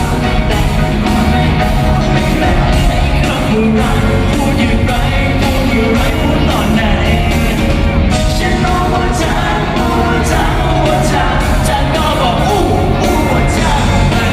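Live rock band playing loudly, with a singer over drums and guitars.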